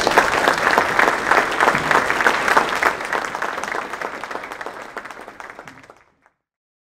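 Audience applauding at the end of a talk, many hands clapping together; it fades from about three seconds in and is cut off suddenly about six seconds in.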